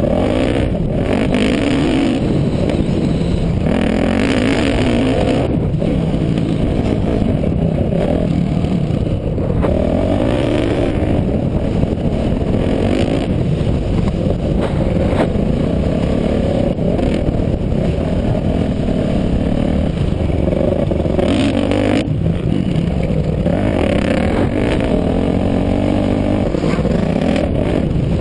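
Dirt bike engine revving up and down again and again as the throttle is opened and closed through the track's straights and turns, heard close from the rider's helmet.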